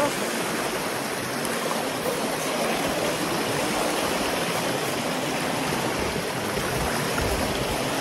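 Shallow mountain stream rushing and splashing over rocks close to the microphone, a steady, even rush of water.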